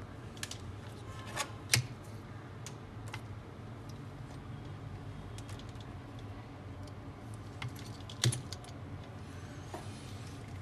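Small sharp clicks and taps of multimeter probe tips against a phone circuit board's components and shields, with two louder clicks just under two seconds in and a little after eight seconds, over a low steady hum.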